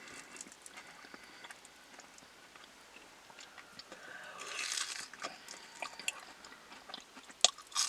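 Close-up mouth sounds of someone eating a McDonald's apple pie: quiet chewing and biting, with small wet clicks, a soft rustle a little past halfway and a few sharper clicks near the end.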